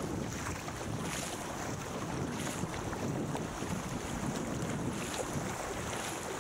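Wind buffeting the microphone over the steady rush and splash of water around a surfski moving fast through choppy sea, with a brighter splash about once a second.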